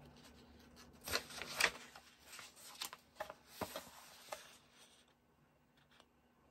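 Paper rustling as the pages of a paperback prayer journal are turned and handled: a run of crisp rustles and flicks over a few seconds, loudest about a second and a half in.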